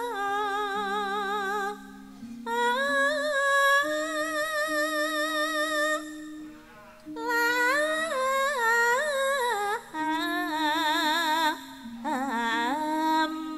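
A pesinden, a female Javanese gamelan singer, singing a slow solo line into a microphone, with wavering vibrato and ornamented held notes in several phrases broken by short pauses. Beneath her voice runs a low held accompanying tone that moves in steps.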